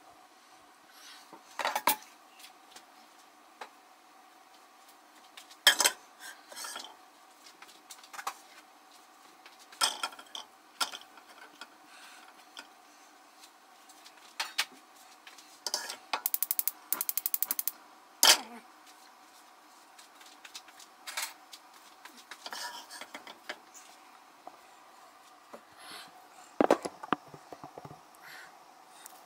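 Pots, pans, lids and metal utensils clinking and knocking during cooking, in scattered single hits. About halfway through comes a rapid run of even clicks lasting about two seconds. A faint steady hum runs underneath.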